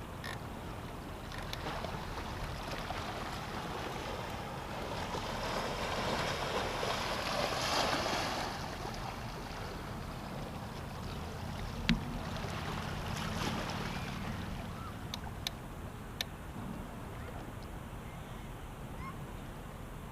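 Sea waves washing against a pier: one surge of water builds to a peak about eight seconds in and then dies away, with a few sharp clicks later on.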